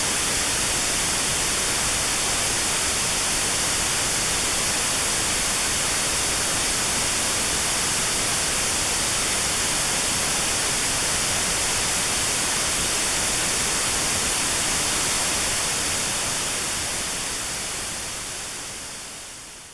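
Notch-filtered white noise: a steady, even hiss with a narrow band around 4 kHz cut out, for tinnitus sound therapy. It fades out over the last few seconds.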